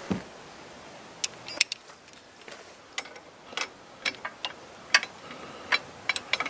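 Hand socket ratchet and loose sockets clicking and clinking in short, irregular ticks as a socket is fitted and turned on a frame bolt, with one dull metal knock right at the start.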